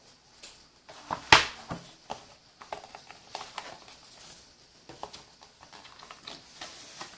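Hands handling a tablet's white cardboard box and insert tray: scattered taps, knocks and light scrapes of cardboard, with one sharp knock a little over a second in.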